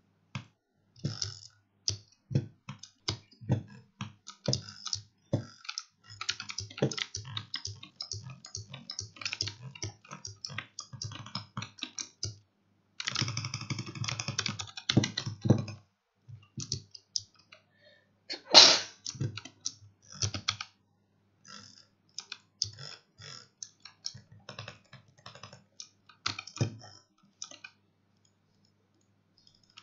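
Razer Huntsman Mini 60% keyboard with optical switches, its keys pressed in quick, irregular runs of clacks. There is a dense flurry of presses about halfway through, one louder clack shortly after, and sparser presses near the end.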